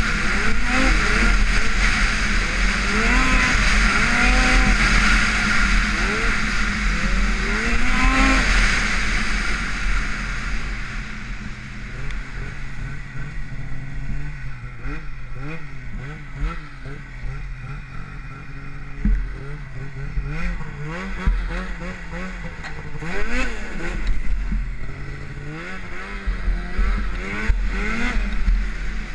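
Arctic Cat XF 8000 snowmobile's two-stroke engine with an Ultra-Q exhaust, running at speed over snow under a loud rushing noise, its pitch rising with the throttle. About ten seconds in it eases off and runs quieter, the engine note swinging up and down with repeated throttle blips.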